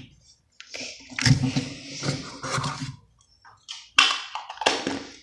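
Crunchy slime being squished and worked by hand: irregular wet squelching with crackly pops, the sharpest about four seconds in.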